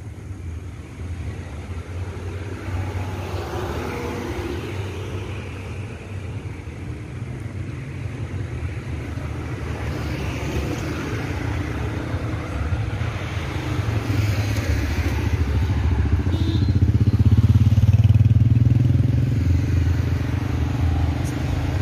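Street traffic: a low, steady motor-vehicle rumble that grows louder through the second half as a vehicle draws near, loudest about three-quarters of the way through, then eases off a little.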